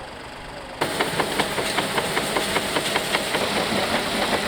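A machine running with a steady hiss and a rapid, regular clicking of about five clicks a second. It starts abruptly about a second in.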